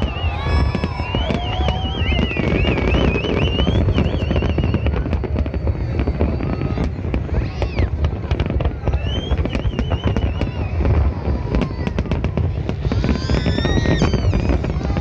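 Large fireworks display going off nonstop: a dense run of rapid crackles and bangs over a continuous low rumble, with high wavering whistles on top and several falling whistles near the end.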